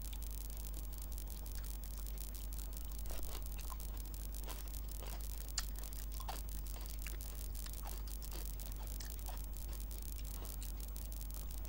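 Close-miked eating sounds: chewing rice and chicken curry, with scattered soft, wet mouth clicks and smacks and fingers squishing rice on the plate, one sharper click about halfway through. A steady low electrical hum runs underneath.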